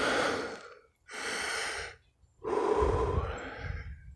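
A man breathing heavily, three loud breaths in a row, the last one longer.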